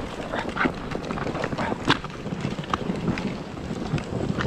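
Sledge runners scraping and crunching over a snowy toboggan run, with irregular clicks and knocks from bumps in the track.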